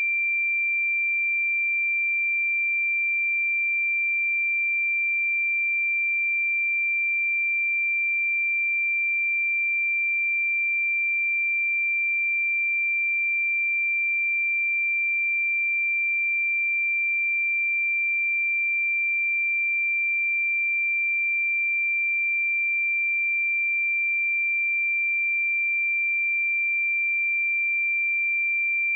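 A single steady 2361 Hz sine-wave test tone, one pure high-pitched pitch held without change.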